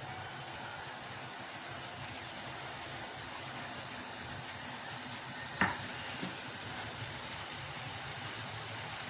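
Small semolina puris deep-frying in hot oil, a steady sizzle with a few light pops and one sharper click about five and a half seconds in.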